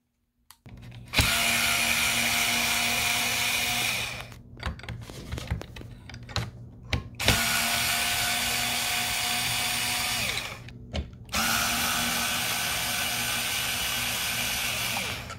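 Black+Decker LightDriver 4V cordless screwdriver running in three runs of about three to four seconds each, a steady whine as it drives screws into blind mounting brackets. Softer clicks and handling noise fall between the runs.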